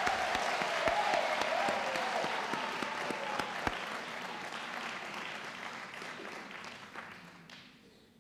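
Audience applauding, with a held, wavering cry over the clapping for the first few seconds; the applause fades away toward the end.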